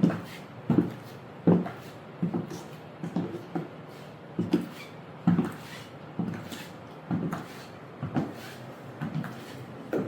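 Footsteps of 6.5-inch platform high heels on a hard floor, a knock at each step at a steady walking pace of a little over one step a second.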